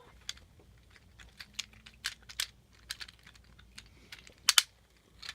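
Close-up chewing of a bite of tortilla: irregular sharp mouth clicks and ticks, with a louder double click about four and a half seconds in.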